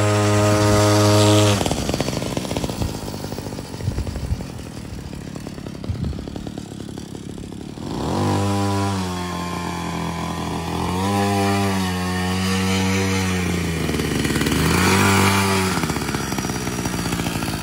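The small 42cc engine of a homemade motorized scooter-trike running at high revs. It is high and steady for the first second and a half, drops to a rougher, lower run, and then about halfway through revs up again, rising and dipping several times.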